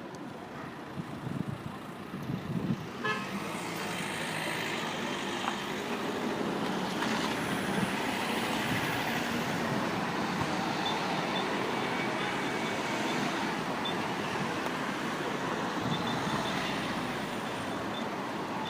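Road vehicle noise: a steady, noisy rush of traffic that grows louder about three seconds in, with a few faint short high beeps later on.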